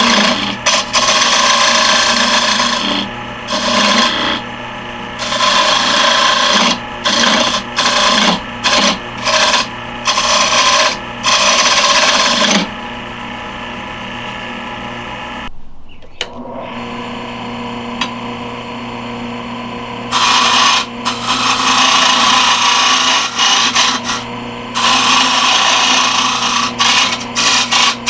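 Wood lathe running with a steady motor hum while a turning tool cuts the spinning wood in repeated passes of a second or so, each a loud hissing scrape. There is a stretch in the middle of several seconds with no cutting, where only the motor is heard.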